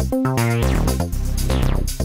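Techno track: synthesizer notes stepping over a low bass, with falling sweeps, the pattern repeating about every two seconds.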